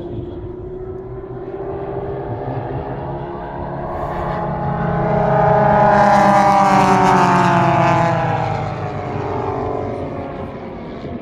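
Formation of Pitts Special aerobatic biplanes flying past, their piston engines and propellers droning. The sound grows to its loudest about six seconds in, then the pitch drops and it fades as the formation goes by.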